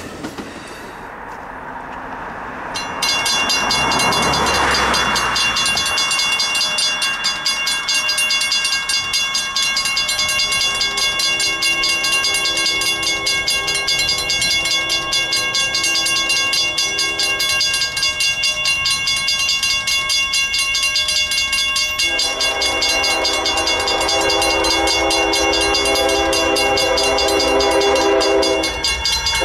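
Mechanical railroad crossing bell ringing with fast, even strokes, starting suddenly about three seconds in. About two-thirds of the way through, an approaching train's horn joins it.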